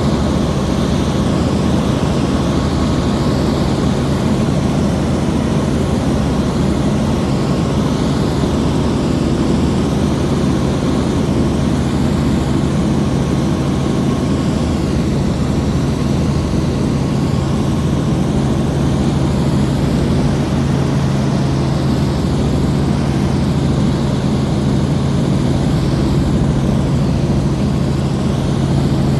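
Helicopter in flight, its engine and rotor running steadily: a constant low hum under an even rushing noise.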